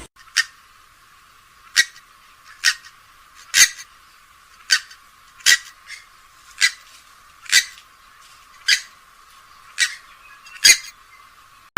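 A rail of the swamphen and moorhen kind gives short, sharp single calls, about eleven of them, roughly one a second with slightly uneven spacing. The recording is thin, with no low end.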